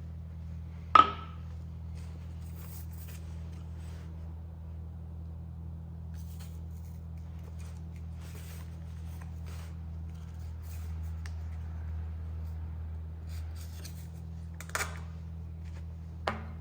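Hand sanding a forged Apex Ultra steel chef's knife blade: faint scratchy strokes of sandpaper over the steel, over a steady low hum. A sharp metallic clink rings out about a second in, and two lighter clicks come near the end.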